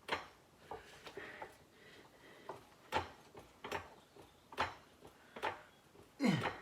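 Irregular metallic clunks and knocks, about ten spread across a few seconds, from a transmission being worked on a floor jack and nudged toward the engine's alignment dowels. Near the end comes the loudest, a short knock with a falling tone.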